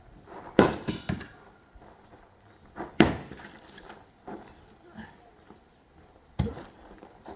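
An axe splitting firewood: three strong chopping strikes a few seconds apart, each a sharp crack into the log, with smaller knocks of wood in between.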